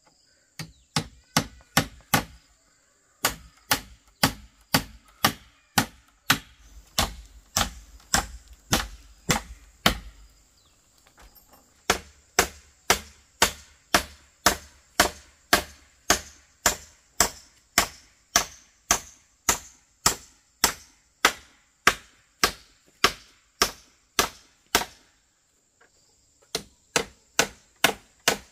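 Hammer driving nails into bamboo roof slats: steady sharp blows, about two a second, with a few short pauses between nails.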